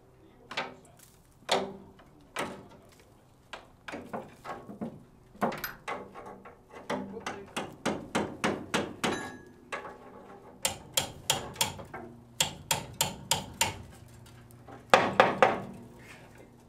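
Hammer blows on a steel steam-locomotive chassis, sharp metallic strikes with a short ring. A few single knocks come first, then runs of quick blows at about three to four a second, with the heaviest strikes near the end.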